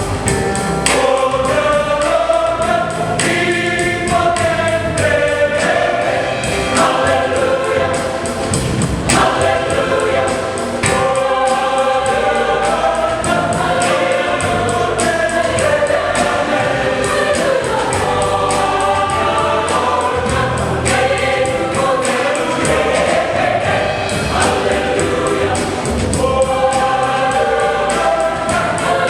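Mixed choir singing a gospel song with a steady beat.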